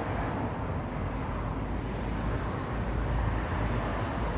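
Steady low rumbling background noise with no distinct events, like road noise or a running motor.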